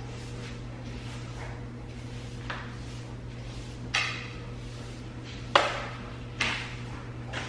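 Broom sweeping shredded foam stuffing across a tile floor: a handful of brisk bristle strokes, the louder ones in the second half, over a steady low hum.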